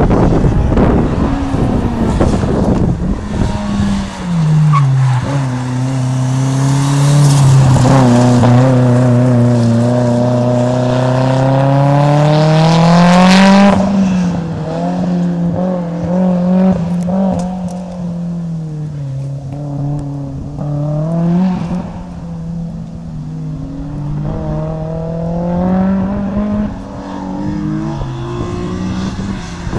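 A car's engine runs hard through an autocross course of cones. The note drops early on, then climbs steadily to its loudest as the car passes close about halfway through. After that it rises and falls again and again as the driver lifts and accelerates between the cones, with the tyres squealing in the turns.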